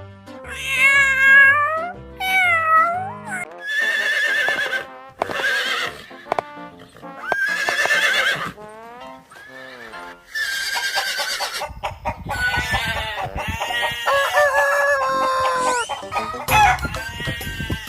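A series of farm animal calls, one after another, over background music.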